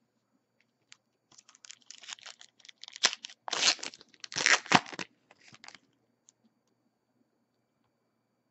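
Foil wrapper of a Panini Elite football card pack being torn open and crinkled by hand: a run of crackling rips starting about a second in, loudest around three and four and a half seconds in, and stopping about six seconds in.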